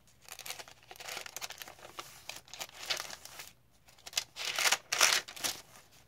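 Paper rustling and crinkling as the pages of a handmade junk journal are turned and its tucked cards and cardstock pieces are handled, with a run of louder rustles near the end.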